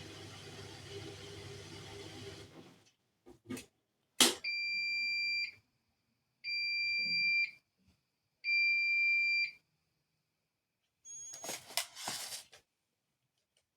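Bosch Series 4 washing machine at the end of its programme: its running hum stops about three seconds in, two clicks follow, then three long electronic beeps about two seconds apart signal that the cycle has finished. A short clatter comes near the end.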